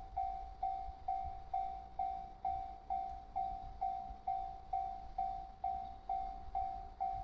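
Japanese railway level-crossing warning bell ringing: a repeating electronic ding, a little over two strikes a second, each fading quickly, over a low rumble.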